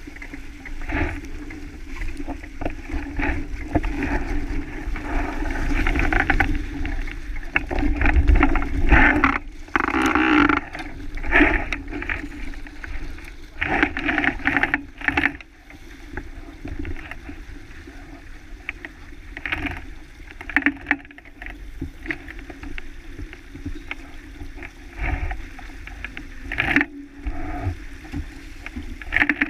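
Water rushing and splashing along the hull of a sailboat heeled and moving fast, with spray at the bow; the noise comes in irregular surges, loudest in a few bursts in the first half.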